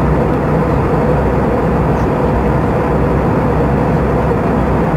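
Steady cabin noise inside an Airbus A320 airliner in flight: the constant drone of the jet engines and rushing air, with a steady hum running through it.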